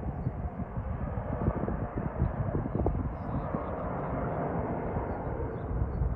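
Aircraft engine noise: a steady rushing rumble with uneven low surges and a faint held whine in the middle.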